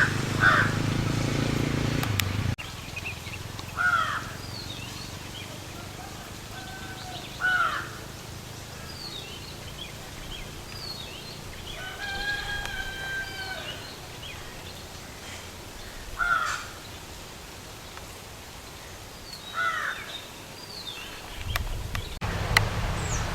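Birds calling in village surroundings: a series of short, separate calls every few seconds, one longer pitched call about halfway through, and faint high chirps between them. A low rumble sits under the first couple of seconds and returns near the end.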